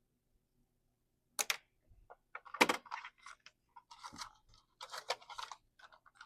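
Irregular crunching, rustling and clicking sounds, close by, starting about a second and a half in after near silence.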